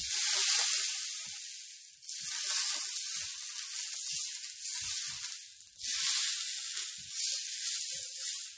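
Butter sizzling on a hot flat griddle pan as it is brushed over the surface, a crackling hiss that swells and eases three times.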